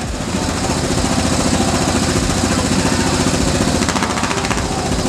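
KTM 690 SMC R's single-cylinder engine running steadily through an aftermarket Wings exhaust, an even, rapid pulsing exhaust note.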